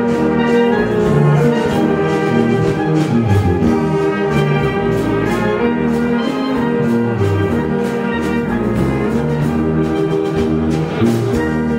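Moravian village brass band (dechovka) playing live, trumpets over a tuba bass line.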